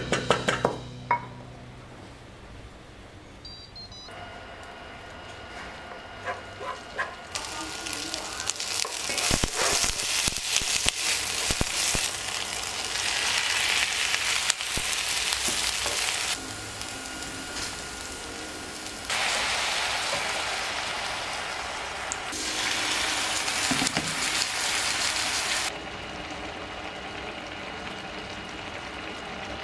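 Sliced eggplant and chili paste frying in oil in a pan: a loud sizzle that starts after a quieter first few seconds of small clicks and knocks, then swells and eases in long stretches as the food is stirred.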